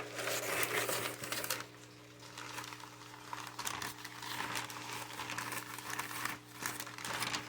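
Packing material in a shipping box crinkling and rustling as it is handled. It starts suddenly, is loudest for the first second and a half, then goes on as uneven rustles.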